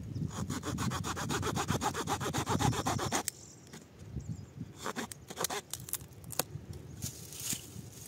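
A Swiss Army knife's wood saw blade cutting wood in a fast, even rasp for about three seconds, then stopping, followed by a few scattered scrapes and knocks.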